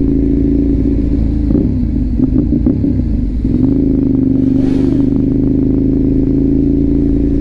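Ducati 848 EVO's twin-cylinder engine idling at a stop, heard close up. The revs waver unevenly for a couple of seconds about one and a half seconds in, then settle back to a steady idle.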